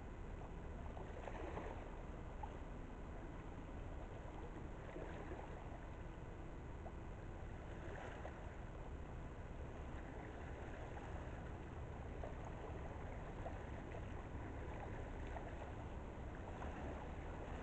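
Faint, steady low rumble of a distant lake freighter's engines carried across the river, with water lapping softly at the shore.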